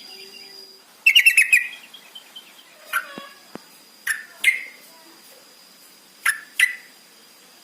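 Yellow-vented bulbul (trucukan) calling: a fast bubbling burst of about eight notes about a second in, followed by short sharp calls, mostly in pairs.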